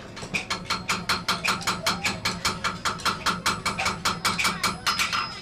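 Hammer striking iron at an anvil in a fast, even run of blows, about five a second, each with a short metallic ring, as a thumb latch's cusp is forged.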